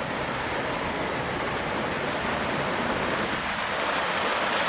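Adams Falls rushing: a steady hiss of falling water that grows slightly louder near the end.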